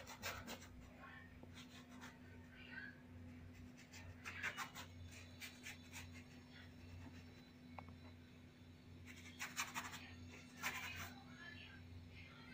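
Flat paintbrush loaded with acrylic paint scratching across canvas in short bursts of strokes: near the start, about four seconds in, and twice more near the end. A faint steady hum runs underneath.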